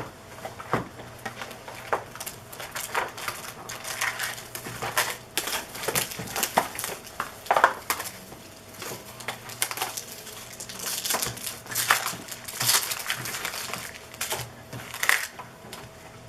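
Trading card pack wrappers being torn open and crumpled, with cards handled, giving a string of irregular crinkling and crackling.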